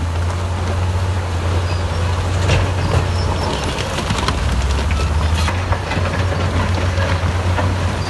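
Heavy diesel engines of a crawler bulldozer and a tipping dump truck running with a steady low rumble, with scattered knocks and clatter of rock throughout.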